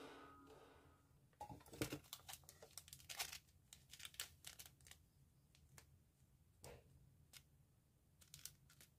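Faint, scattered clicks and crinkles as a card of earrings in a plastic sleeve is picked out of a clear plastic compartment box of beaded jewellery, then one more small click near the end.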